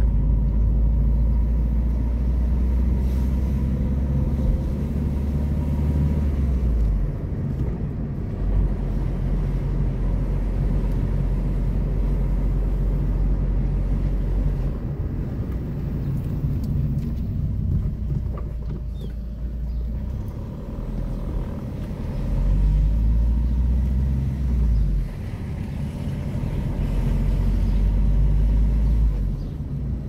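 Car driving, heard from inside the cabin: a steady low engine and road rumble that swells and eases several times.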